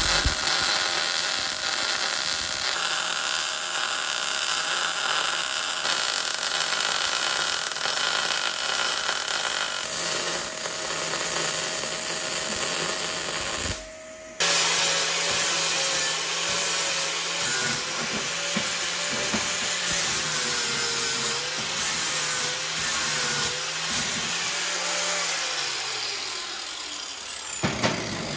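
A handheld power tool running steadily on the steel engine mounts. It stops abruptly about fourteen seconds in, starts again with a slightly wavering pitch, and winds down near the end.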